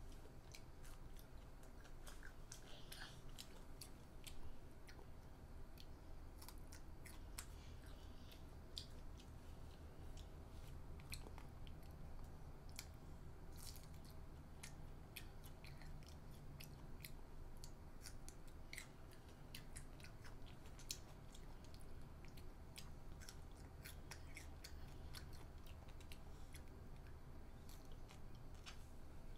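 A child chewing and biting crisp bánh xèo pancake wrapped in lettuce and herbs: faint, scattered crunches and mouth clicks over a low steady hum.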